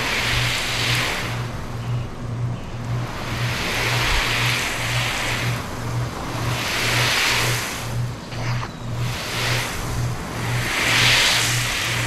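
Water spray from a hose hissing onto a fabric convertible soft top. The hiss swells and fades about four times as the spray sweeps back and forth across the roof, over a low beat of background music.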